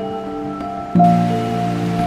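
Background music: soft sustained melodic notes, with a new chord struck about a second in. At the same moment a steady rush of river water comes in underneath.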